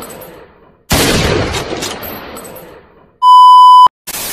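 A loud shot from an AWM-style sniper rifle about a second in, echoing away over about two seconds, with the fading tail of an earlier shot at the start. Then a steady electronic test-tone beep sounds for just over half a second, followed by a brief burst of TV static at the end.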